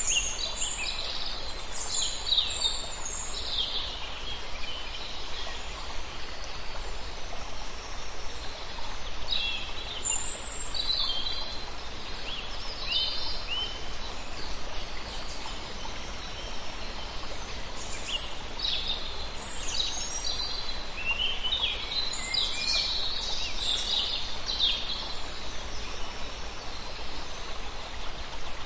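Small birds chirping in scattered bursts of short, high calls over a steady outdoor background hiss.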